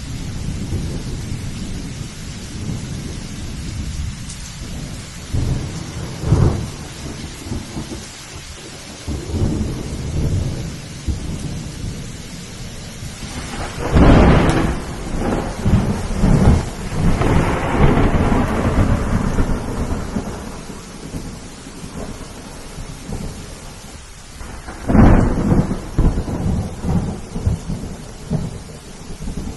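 Thunderstorm: steady rain with rolling low thunder, and sharper thunder cracks about halfway through and again near the end.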